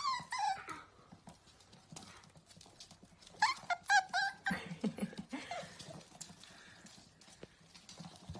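Dachshund puppies yipping: a short falling whine at the start and a quick run of high-pitched yips about three and a half seconds in, with light clicks of claws on a wooden floor.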